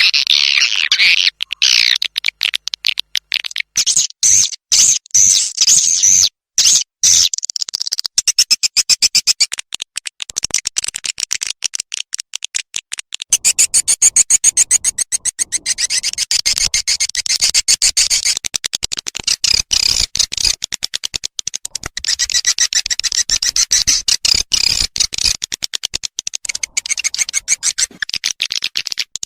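Swiftlet lure-call recording: rapid, high-pitched twittering and clicking chirps in a dense, continuous chatter with short breaks. It is the call sound played in swiftlet houses to draw birds in to roost.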